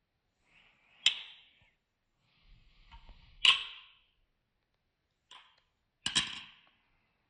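Balisong (butterfly knife) handles clacking together with a short metallic ring as the knife is flipped through rollovers: three sharp clacks about two and a half seconds apart, with a fainter click just before the last.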